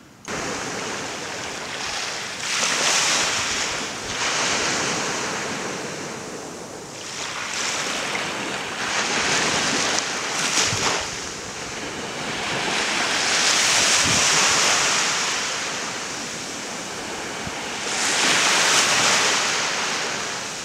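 Small waves breaking and washing up on a sandy beach, the surf swelling and easing every few seconds. It starts abruptly just after the beginning.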